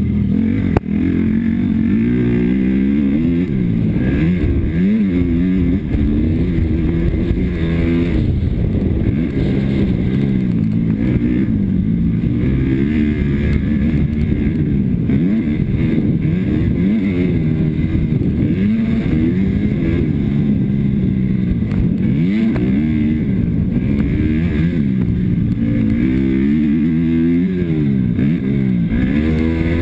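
Motocross bike engine heard close up from the rider's own bike, revving up and falling back again and again as she accelerates and backs off around the track. There is a sharp knock about a second in.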